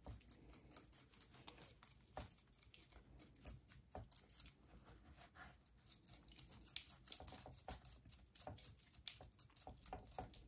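Faint, irregular scratching and crumbling as dry potting mix is cleaned off the edges of a jade plant's root ball.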